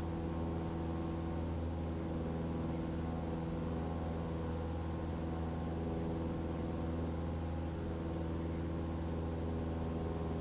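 Cessna Skyhawk's piston engine and propeller at full climb power, a steady drone heard from inside the cockpit.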